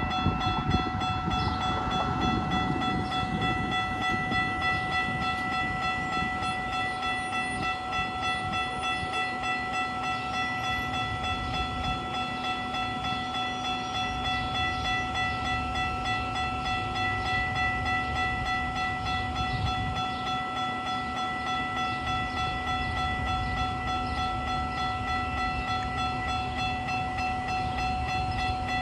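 Railroad crossing warning bell ringing steadily and repeatedly as the crossing signals are activated, with a low rumble in the first few seconds.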